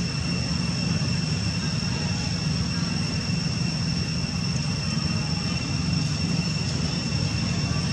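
Steady outdoor background: a continuous low rumble with a constant thin high whine above it, and no distinct events.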